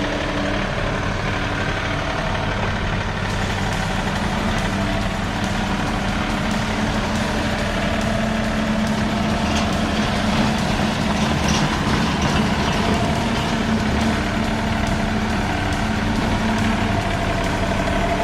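Heavy engine running steadily, with a constant low drone throughout.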